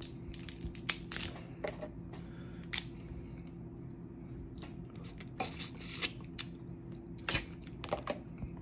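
Snow crab legs being cracked and broken open: an irregular string of sharp shell cracks and snaps, some in quick clusters.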